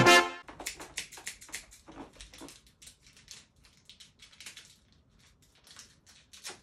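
Salsa music cuts off in the first half-second. Then comes a string of faint, irregular snips and crinkles as a pair of scissors cuts open a small stapled package.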